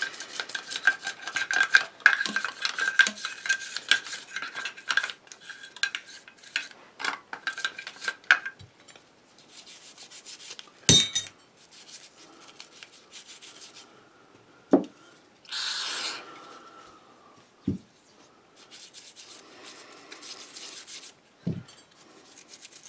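Soft brush scrubbing small metal action parts of a Mossberg 500 pump shotgun, with quick scratchy strokes for the first eight seconds or so. After that, a few sharp metal clicks come as the parts are handled, with a brief hiss about two-thirds through and some lighter scrubbing near the end.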